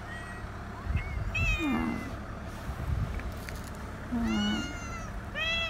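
Stray cats meowing: several separate rising-then-falling meows, the loudest about four seconds in and another just before the end.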